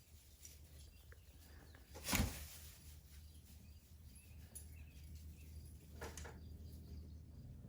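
Faint chicken sounds in a barn over a steady low hum, broken by a sharp thud about two seconds in and a weaker one about six seconds in.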